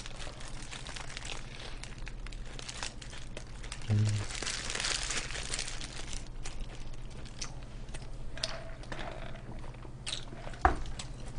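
Fast-food wrapper paper crinkling and rustling while a shrimp burger and cheese sticks are eaten, with crunchy bites and chewing. A short hum about four seconds in and a single knock near the end.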